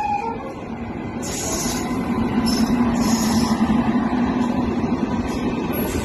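Rajdhani Express train coming in with a steady low rumble, with short hissy bursts a little over a second in and again around two to three seconds in. The tail of a horn note ends just as the sound begins.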